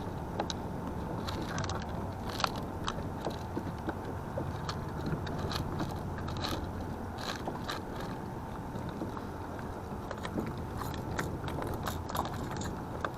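Irregular small clicks and scrapes, a handful every second, over a steady low rumble of wind and water.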